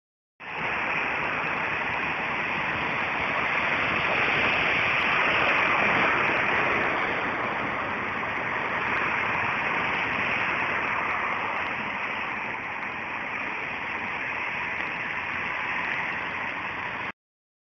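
Steady hiss of road traffic on wet asphalt, tyres swishing through water, swelling a little a few seconds in and cutting off suddenly near the end.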